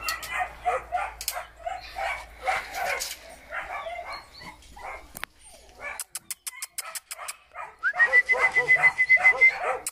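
Dogs whining and yipping in many short, high-pitched calls, with a long held whine near the end. From about six seconds in, a quick run of sharp clicks.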